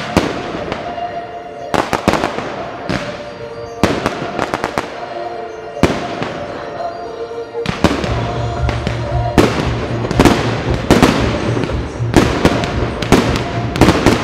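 Fireworks display: a rapid series of shell bursts and crackles, over music playing along that grows heavier in the bass about eight seconds in, as the firing gets denser and louder.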